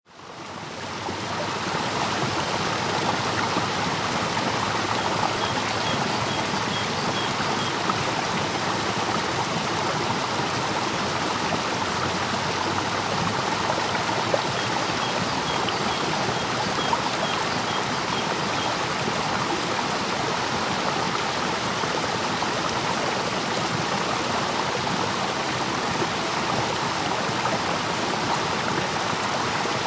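Steady rush of a river in flood, white water pouring over falls and rapids swollen by heavy spring rain. It fades in at the start.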